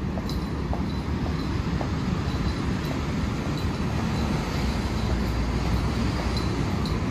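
Steady low rumble of city street traffic, with faint short ticks at a regular pace.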